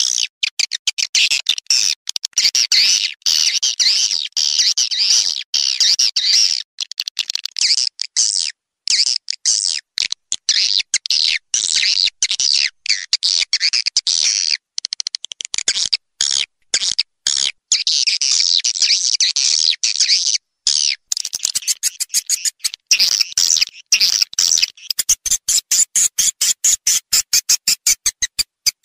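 Edited recording of swiftlet calls: dense, rapid twittering chirps and clicks, cut into bursts with short silent gaps, turning into a fast run of clicks near the end. It is a swiftlet lure call (suara panggil), meant to be played through an amplifier to draw swiftlets into a nesting house.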